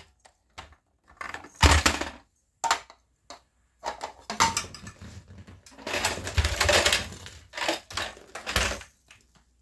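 Irregular bursts of clattering and scraping as a toddler handles a wooden bowl and a plastic activity cube toy on a tatami mat, loudest about two seconds in and again around six to seven seconds.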